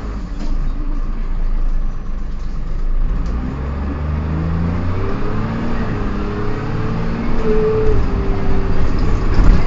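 Dennis Dart single-deck bus pulling away and accelerating. Under the engine's low drone, a whine rises in pitch with speed and is loudest a couple of seconds before the end. This is the odd gear whine from the driveline.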